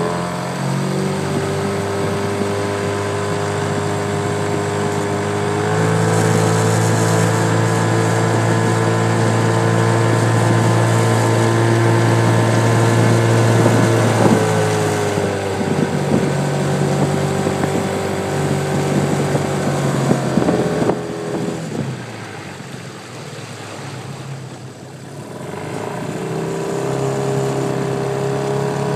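Outboard motor of a coaching launch running steadily. Its pitch drops as the throttle eases about halfway through, it runs quieter for a few seconds later on, and it picks up again near the end.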